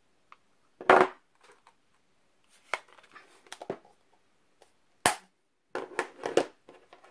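Hard plastic clicks and knocks from a plastic ink pad case and a clear acrylic stamping block being handled, pressed together and set down on a cutting mat. They come in separate clusters, the loudest about a second in and again about five seconds in.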